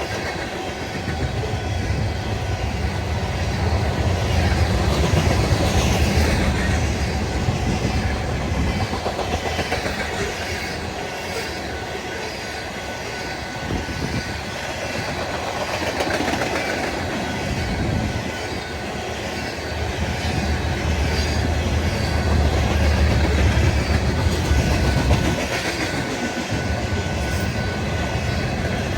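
A train rolling past, its wheels clicking steadily over the rail joints; the sound swells and eases slightly as the cars go by.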